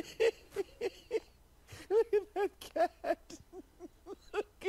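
A man laughing helplessly in short, high-pitched ha-ha bursts, several a second, in runs broken by brief gasping pauses.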